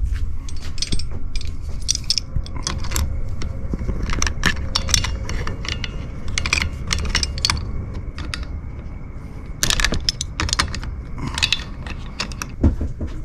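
Metal hand tools clinking and scraping: an adjustable wrench and pliers knocking against the brass fitting of an LPG gas hose as it is tightened, in many short, irregular clicks. Near the start, tools rattle in a toolbox as the wrench is picked out.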